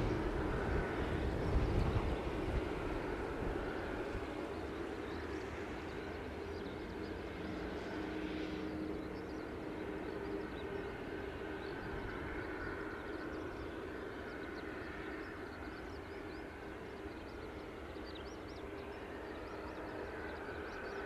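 A Boeing 747-400's four turbofan engines during landing and rollout. A heavy low rumble in the first couple of seconds gives way to a steady jet roar with a whine in it, slowly fading as the airliner rolls away.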